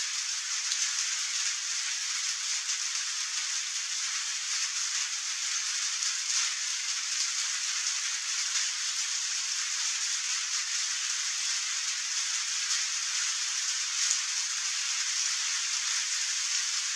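Steady rain falling, an even hiss with a few faint separate drop taps.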